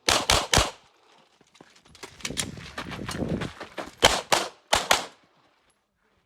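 Glock 34 9mm pistol firing a quick string of three shots, then after a couple of seconds of scuffling noise another four shots in two quick pairs.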